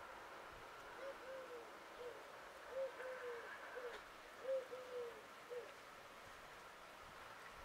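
A bird calling: three phrases of three low, arched notes each, the middle note of each phrase the longest.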